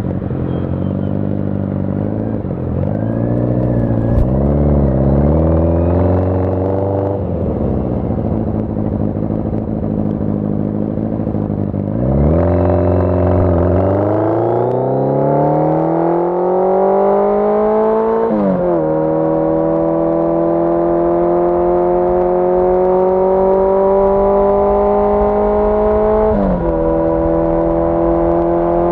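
1981 Yamaha XJ650 Maxim's air-cooled inline-four engine on the road. After a few seconds of light on-off throttle it pulls up steadily in pitch. It drops in pitch with an upshift a little past the middle, climbs again, shifts once more near the end, then holds at cruising speed.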